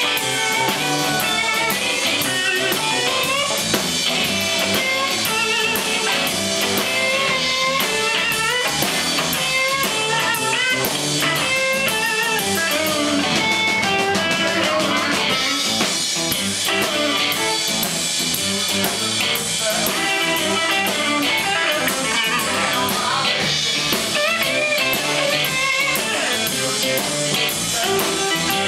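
Live blues-rock band playing: electric guitar lead lines over a drum kit and bass guitar.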